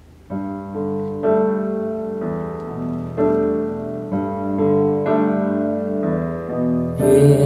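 Piano introduction to a Mandarin ballad, played back through a Luxman LUXKIT A3500 valve amplifier and Celestion SL6si speakers: sustained chords struck about once a second. A singing voice comes in near the end.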